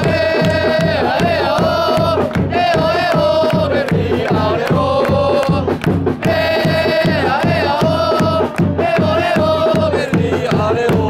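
Football supporters singing a chant in unison over a steady drumbeat.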